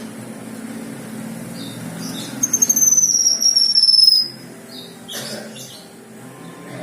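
Kinoi songbird singing: one loud, high whistle held for nearly two seconds and falling slightly in pitch, with a few short chirps before and after it, over a low steady hum.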